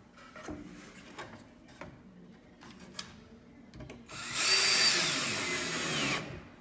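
Cordless drill running for about two seconds as it drives a screw into the cedar chair's back slat, its whine dropping in pitch as it slows near the end. Light wooden knocks and taps come before it as the slat is positioned.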